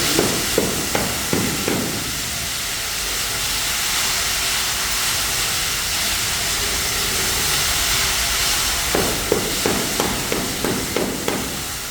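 Building-site work during concrete screeding: a steady hiss, with runs of short sharp knocks, a few a second, near the start and again about nine seconds in.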